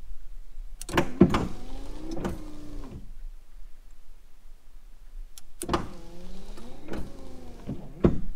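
Datsun 240Z windshield wiper motor running through two wipe cycles of about two seconds each. Each starts with a click and a whine that bends up and down in pitch as the arms sweep, and ends with a click.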